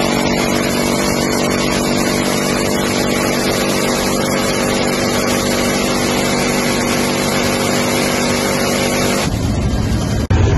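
M134 Minigun firing one long continuous burst from a Black Hawk's door mount, heard as a steady buzzing drone that cuts off suddenly about nine seconds in. The helicopter's rotor and wind noise carry on underneath and after it.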